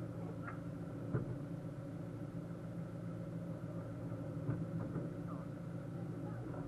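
Narrowboat engine idling steadily, with a couple of short knocks, about a second in and again about four and a half seconds in.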